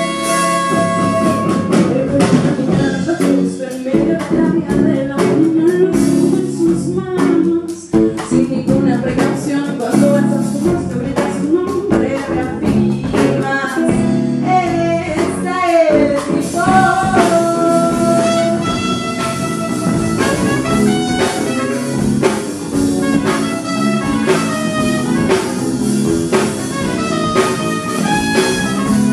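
A soul-folk band playing live: a female lead singer over electric bass, electric guitar and a drum kit keeping a steady beat.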